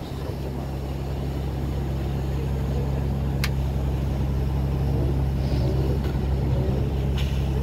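Tour boat's engine running with a steady low hum that slowly grows louder, and a single sharp click about halfway through.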